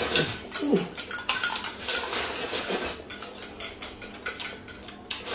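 Metal spoons clinking and scraping inside small glass cups as corn soup is stirred and spooned up, with chopsticks tapping a plate, in irregular light clicks throughout.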